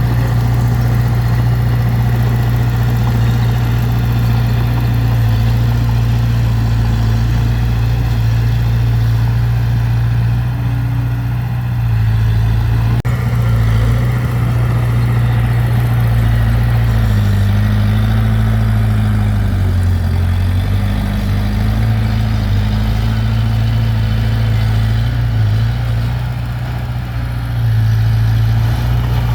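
Heavy diesel engine of earthmoving machinery running steadily, its pitch dipping under load a little past the middle and then recovering.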